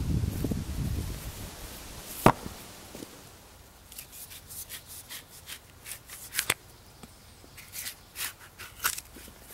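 Bark being stripped from a freshly cut maple log: a run of short, irregular crackling snaps and tears as strips pull away. A single sharp knock about two seconds in, and a low rumble in the first second.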